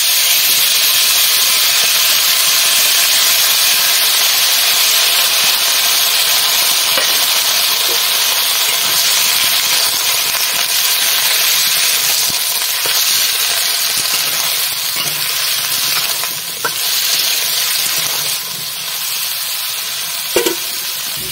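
Cut vegetables (potato, pumpkin, beans) sizzling loudly in hot oil in a karahi, just tipped in over a spice tempering. The steady frying hiss eases off a little near the end, with a few scrapes and taps of a metal spatula stirring them.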